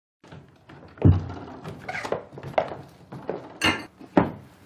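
Objects being handled in a room: a heavy thump about a second in, then a string of sharper clicks and knocks and a brief rustle, the last knock as a tan leather bag is handled.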